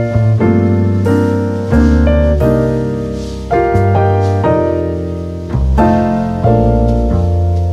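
Background piano music: chords struck and left to fade, a new one every second or so.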